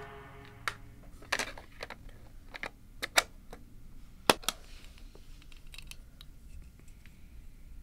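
Plastic clicks and clacks of a portable CTR-67 voice-actuated cassette tape recorder being handled as a cassette is loaded and the cassette door is pressed shut. The sharpest snaps come about three and four seconds in, with smaller scattered clicks around them.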